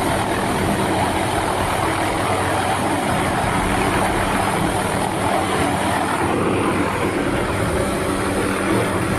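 Small helicopter's engine and rotor running steadily while it hovers close alongside a ship.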